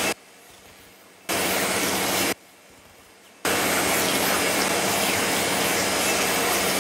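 Cartoon vacuum cleaner running: a loud, steady rushing motor noise that cuts out twice for about a second, then runs on steadily.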